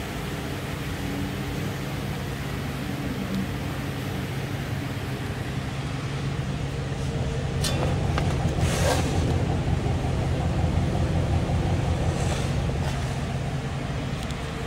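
A 2008 GMC Sierra 1500's 4.3-litre V6 idling steadily, heard at the exhaust. It gets louder about eight seconds in, close to the tailpipe, with two brief rushing sounds around then.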